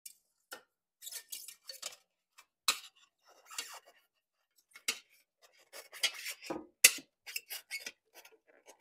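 A front fender being fitted to an e-bike's fat-tire fork: irregular clinks, clicks and rattles of the fender and its thin metal stays, with one sharp click about seven seconds in.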